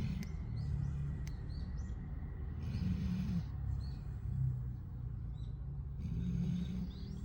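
A sleeping retriever dog snoring, a low raspy snore swelling about every three seconds with each breath.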